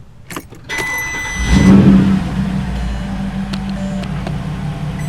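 Porsche Cayenne S 4.5-litre V8 starting up about a second and a half in, with a brief rise, then settling into a steady idle. A single high, steady dashboard warning beep sounds just before the start and again near the end: the dreaded beep of the car's four-wheel-drive fault.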